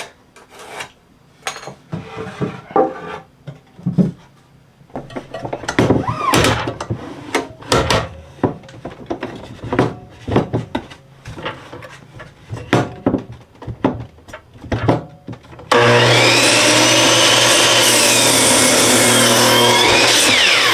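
Wooden boards knocked and shuffled into position, then, about three-quarters of the way through, an electric miter saw starts up and cuts through a board at a 45-degree angle, a loud, steady motor whine with the rasp of the blade in the wood.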